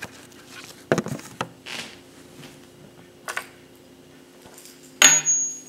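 Handling noise from a person moving about and picking things up: scattered light knocks and rustles, then a louder scrape with a brief high squeak about five seconds in.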